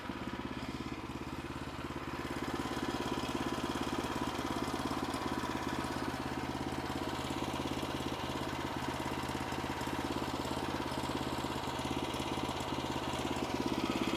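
Sawmill engine running steadily, a little louder from about two seconds in, as the blade takes a half-inch cut through the log.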